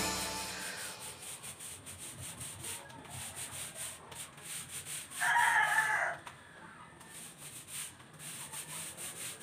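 Faint rubbing of a paint roller being worked over a rough concrete wall. Just past halfway, a short pitched call of about a second stands out above it.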